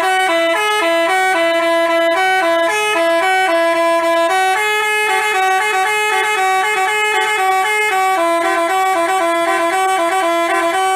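Bus telolet horn of the Basuri type playing a melody: a rapid run of horn notes stepping up and down in pitch. It starts and cuts off abruptly.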